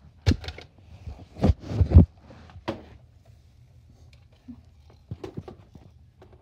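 Several sharp knocks and thumps in a small room, the loudest about two seconds in, then a few softer taps near the end.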